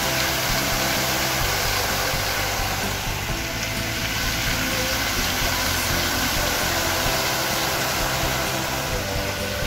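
Steady rushing and splashing of a large dancing fountain's rows of water jets spraying up and falling back into the basin.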